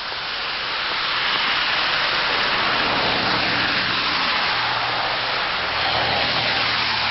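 Cars passing on the road: tyre hiss that swells and fades, then swells again, over a low engine hum.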